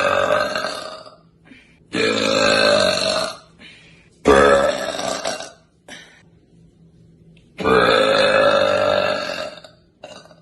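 A woman letting out long, deep, bassy burps. One trails off about a second in, then three more follow a second or two apart, each lasting over a second.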